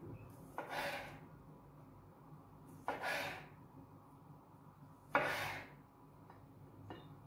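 Kitchen knife halving cherry tomatoes on a cutting board: three cuts about two seconds apart, each a sharp tap followed by a short scraping hiss.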